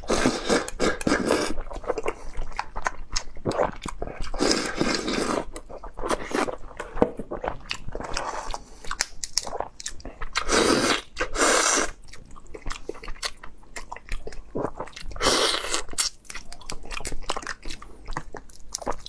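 Close-up eating sounds: chewing a mouthful of rice and raw marinated swimming crab, sucking meat and roe from the shell, and crunching as the crab legs are cracked apart. The sounds are irregular crunches, clicks and slurps throughout.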